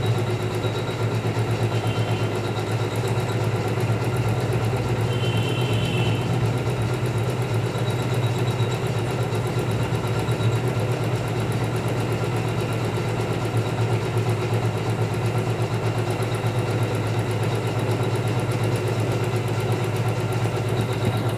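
Computerized embroidery machine stitching, its needle going up and down in a fast, even rhythm over a steady motor hum.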